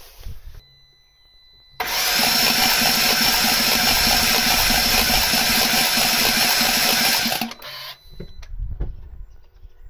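Starter motor cranking the BMW F10 M5's 4.4-litre twin-turbo V8 with the spark plugs out for a compression test, a steady even rhythm that starts about two seconds in and stops about seven and a half seconds in. The cylinder under test, number six, holds no compression: it has a hole in its piston.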